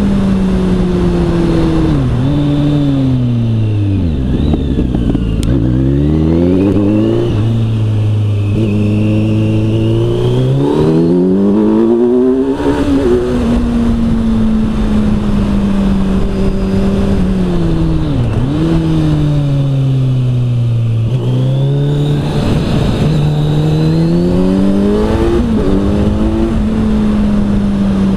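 Kawasaki Z900 inline-four engine with an Arrow exhaust, heard from the bike on the move. Its revs drop with quick downshift blips a few seconds in, climb in several pulls broken by gear changes, ease off slowly, then climb through the gears again near the end.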